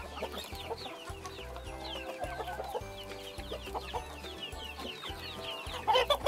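Many chicks peeping in short falling notes, mixed with hens clucking, over background music with held notes and a steady low beat. A louder hen call comes near the end.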